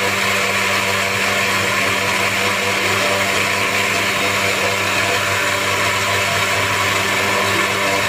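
Electric blender grinding dried eggshells into powder, its motor running at a steady high speed with a gritty whirr. Near the end it is switched off at the knob and the motor spins down with a falling pitch.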